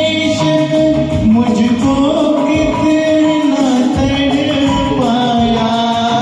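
Bollywood song music at steady loudness: a karaoke backing track with a held melody line and percussion.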